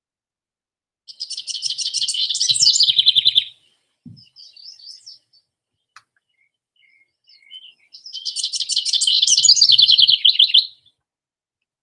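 House wren singing: two rapid, trilled songs of about two and a half to three seconds each, the second starting about eight seconds in, with soft scattered notes between them.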